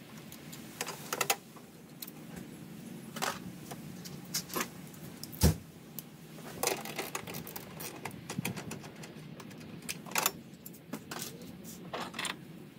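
Scattered clicks and knocks of hands unclipping and handling plastic trim and hoses around the strut tower in a Mazda MX-5's engine bay, with one sharp, louder click about five and a half seconds in.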